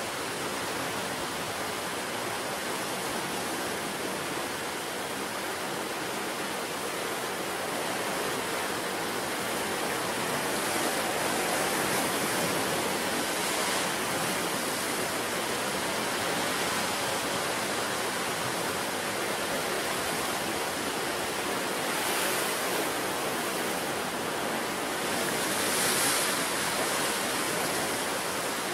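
Ocean surf rushing onto the shore in a steady wash that swells as waves break, with the loudest surge near the end.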